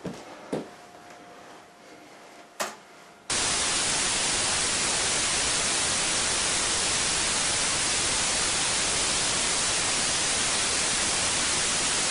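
Loud, steady white-noise static that switches on abruptly about three seconds in and holds without change. Before it, a couple of light knocks and faint handling sounds.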